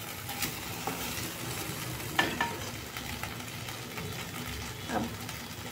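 Butter sizzling steadily under a stack of milk-soaked bread slices frying in a nonstick kadhai. A few clicks and scrapes of a steel spoon and wooden spatula against the pan come as the bread is turned and pressed down, the loudest a little after two seconds in.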